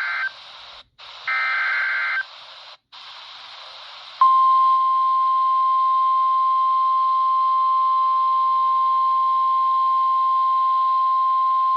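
NOAA Weather Radio Emergency Alert System broadcast heard through a weather radio receiver. The end of one SAME digital header burst comes first, then another harsh data burst about a second in, with radio static hiss between. About four seconds in, the steady single-pitch 1050 Hz warning alarm tone starts and holds, signalling that a warning message follows.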